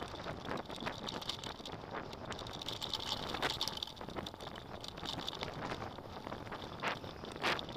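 Mountain bike riding over a dirt track: steady tyre noise on the loose surface, broken by scattered sharp rattles and clicks as the bike goes over bumps.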